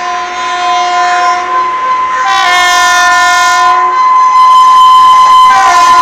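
Indian Railways electric locomotive's air horn blowing a very hard, shrill honk that grows louder as the train approaches. One steady tone is held throughout. A chord of higher tones joins it about two seconds in for a second and a half, and again near the end.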